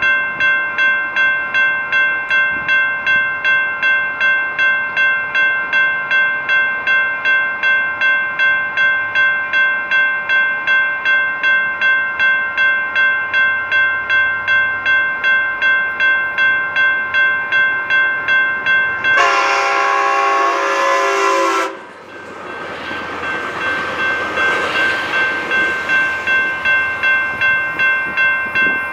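Railroad grade-crossing warning bell ringing steadily at about two strikes a second. About 19 s in, a locomotive horn sounds one chord for about two and a half seconds. The train then passes with a rushing rumble while the bell keeps ringing.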